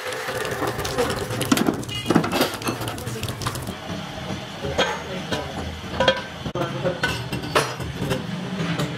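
Metal parts clinking and knocking as a steel stub shaft is handled and fitted into the end of a steel pipe roller, in scattered short strikes over a steady low hum.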